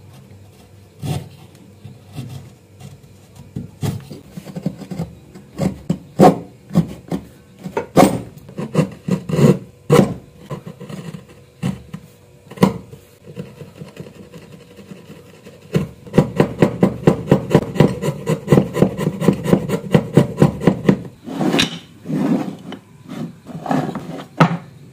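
Hand tools working a small piece of wood: irregular sharp knocks and cuts of a steel chisel on the wood, then about five seconds of quick back-and-forth strokes, about six a second, then a few more knocks near the end.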